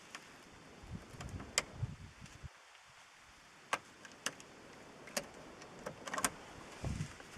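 Irregular sharp plastic clicks and taps, about half a dozen, with a few low thumps, from a cable tie being bent and worked around the small ball studs of a 3 mm ABS grill block.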